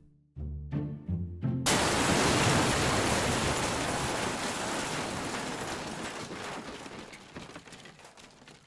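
A sudden loud crash sound effect for a floor caving in, a hissing rush of noise like falling rubble that fades away slowly over about seven seconds.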